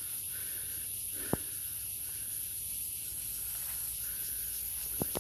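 Insects in woodland keeping up a steady high-pitched hiss, with a softer chirp pulsing about once a second. A single sharp click sounds about a second in, and two more come close together near the end.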